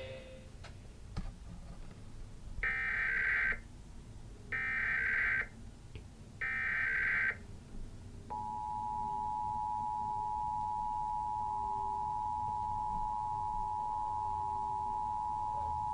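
Emergency Alert System monthly test heard through a TV speaker: three roughly one-second bursts of SAME data header tones, then the EAS two-tone attention signal starting about eight seconds in and holding steady.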